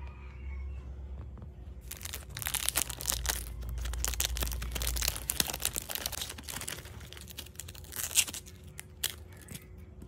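Clear plastic packaging bag crinkling and rustling as a phone case is handled and taken out of it, starting about two seconds in and dying away near the end, with a sharper crackle about eight seconds in.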